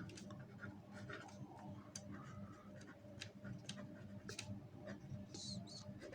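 Pen writing on paper: faint, irregular scratches and light ticks of the strokes, over a steady low hum.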